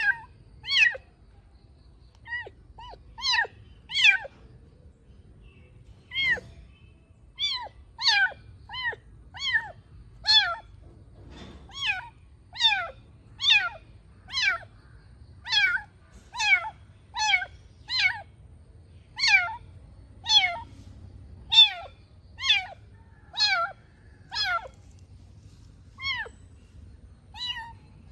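Kitten meowing over and over, short high-pitched meows about one a second, each falling in pitch, with a brief pause about five seconds in.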